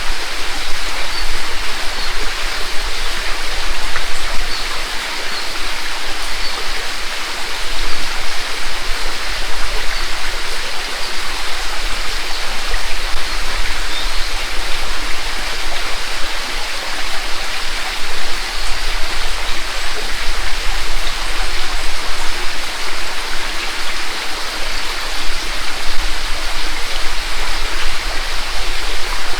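Mountain stream rushing over a rocky bed and small waterfalls, a steady splashing babble.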